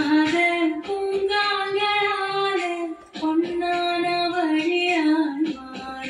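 Background song: a high singing voice holding long, wavering notes over music, in two phrases with a short break about halfway through.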